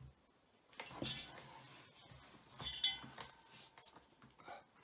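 Light metallic clinks as a soldering iron stand's coiled metal holder is handled: a short clatter about a second in and a brighter clink with a little ringing near three seconds.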